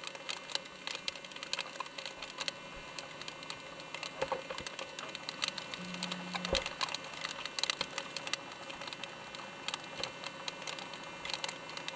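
Water drops from rain and sea spray hitting the camera, heard as a dense, irregular crackle of small clicks.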